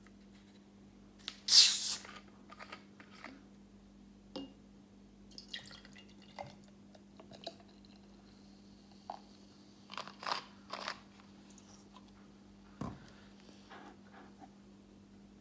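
Scattered small clicks, knocks and crunches of food and utensils being handled, with one louder crunch about a second and a half in, over a steady low hum.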